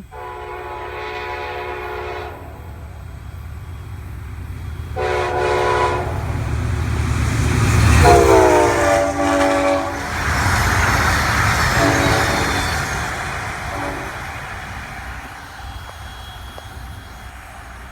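Amtrak P42DC locomotive's Nathan K5LA five-chime horn sounding five blasts as the train passes at speed: two long ones, a third long one that drops in pitch as the locomotive goes by, then two short ones. The rumble of the passing train's engine and wheels swells to a peak about eight seconds in and then slowly fades.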